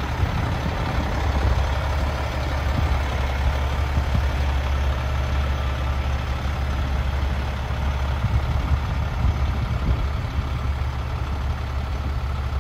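Peterbilt semi-truck's diesel engine running steadily as the rig, pulling a lowboy trailer, moves slowly at low speed, a constant deep rumble.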